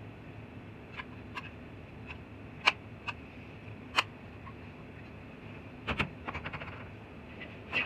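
Light clicks and taps of small hard parts being handled, coming irregularly, with a quick run of clicks about six seconds in. A steady low hum lies underneath.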